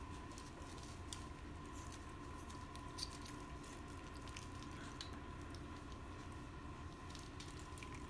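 Faint, scattered wet clicks and smacks from newborn puppies, over a steady low hum.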